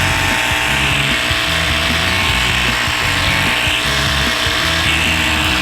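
Slime Power Sport 12-volt portable tire inflator's compressor running steadily while pumping up a motorcycle tire.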